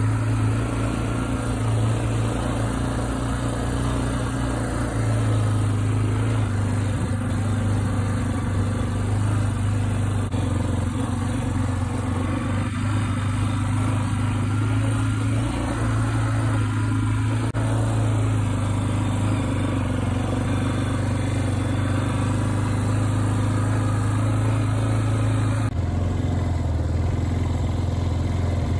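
Small ATV (four-wheeler) engine running steadily while under way, a low, even drone heard from on board the moving vehicle.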